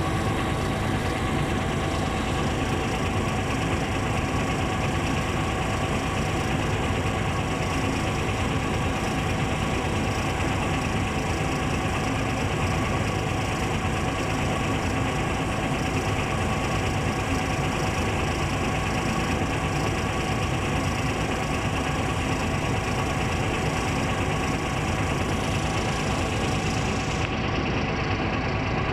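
Heavy excavator's diesel engine running steadily, a constant engine noise that holds at one level without pauses or sudden changes.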